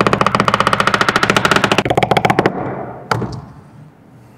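Power impact tool hammering rapidly, about fifteen blows a second over a steady whine, for about two and a half seconds, then running down; a single sharp click follows.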